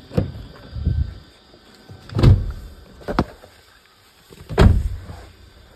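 A person getting into a car: a few dull thumps of the door and body, the loudest about two seconds and four and a half seconds in, with a sharp click between them, as the car door is opened and shut.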